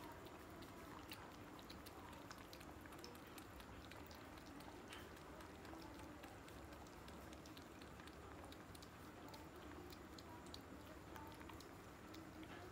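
Two cats lapping milk from a steel plate: faint, quick, irregular wet lapping clicks.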